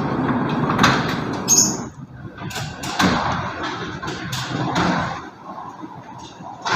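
A sliding garage door rolling along its track with a rumbling scrape, with a few sharp knocks and bangs.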